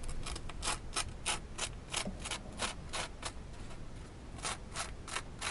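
Fingers rubbing and scratching across the dry, crisp crust of a freshly toasted slice of bread, a run of short rasping strokes, about three a second. The strokes pause a little past three seconds, then three more follow. The crisp surface is the sign that the bread has toasted.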